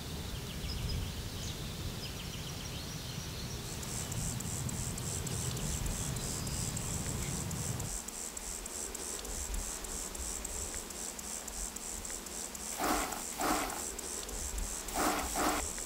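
Outdoor ambience with a steady, high, pulsing insect chirring that sets in about four seconds in, a few faint bird chirps at first, and several short, louder noises near the end.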